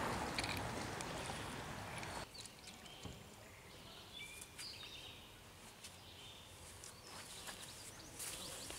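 A small hooked bluegill splashing at the surface of the creek, the splashing fading and stopping about two seconds in. After that it is quiet, with a few faint high chirps.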